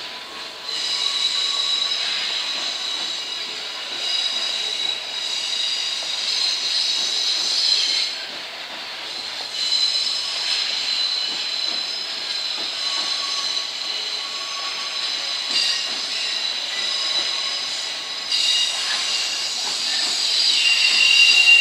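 Container wagons of a departing freight train rolling past with a high-pitched wheel squeal made of several shrill tones. The squeal fades for a moment about eight seconds in and grows loudest near the end.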